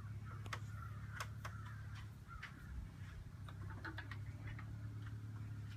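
Scattered faint clicks and small metallic handling noises from a 300 Blackout short-barreled rifle being handled and cleared, over a steady low hum.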